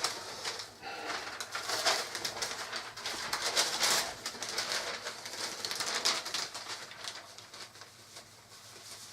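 Rustling and scraping of cardboard jigsaw pieces and the paper under them being handled and slid, in uneven swells that fade toward the end.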